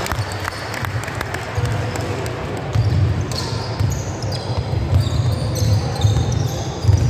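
Basketball game on a wooden sports-hall court: a basketball bouncing as a player dribbles, with players' footfalls and short, high squeaks of trainers on the floor from about three seconds in.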